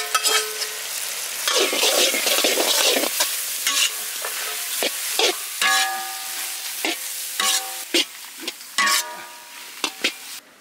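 Metal ladle stirring fried fish pieces into sauce in an iron wok: a steady sizzle with repeated scrapes and clanks of the ladle against the wok, some of them ringing briefly.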